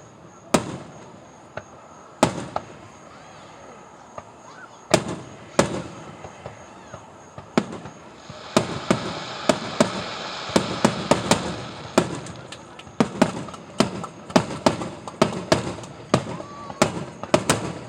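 Fireworks bursting: single bangs a second or more apart, then from about halfway a rapid barrage of many bangs over a continuous crackle.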